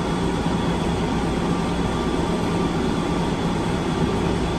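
Steady hum of a Plane Train automated people-mover car standing at a station with its doors open: ventilation and equipment noise running evenly, with a faint steady low tone.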